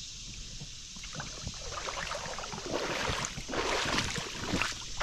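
Footsteps wading through shallow creek water, with irregular splashing and sloshing that starts about a second in and grows louder.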